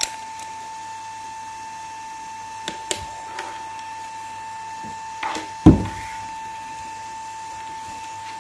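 A steady high electrical whine from the powered bench-test setup of a bi-LED projector, under the knocks and clatter of the projector and a tape measure being handled on a wooden desk. The loudest sound is a single thump a little past the middle.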